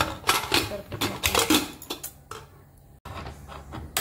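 Aluminium pressure cooker lid being fitted and closed: a quick run of metal clinks, knocks and scrapes over the first two seconds or so, then it goes quieter.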